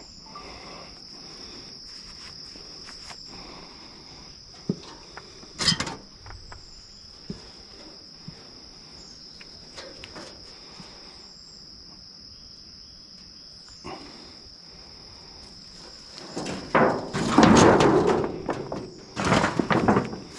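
Steady high-pitched insect chorus throughout, with a sharp knock about six seconds in. Over the last four seconds comes louder rustling and clattering as rotten boards and corrugated metal roofing sheets are shifted by hand and snake hook.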